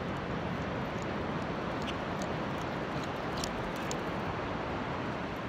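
Steady wind rushing over the phone's microphone, buffeting in the low end, with a few faint clicks near the middle.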